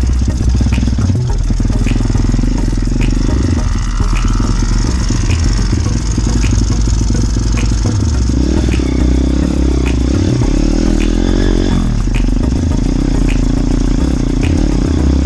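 Motorbike engine running while riding, its revs rising and falling, with a light rattle.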